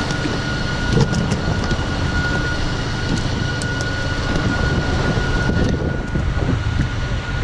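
A boat's engine running steadily at low revs, with a thin steady whine above it and a couple of light knocks about a second in.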